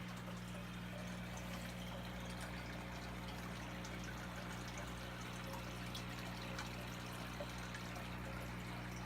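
Aquarium water running steadily into the fish tank, an even trickling and splashing with faint scattered drips, over a steady low hum.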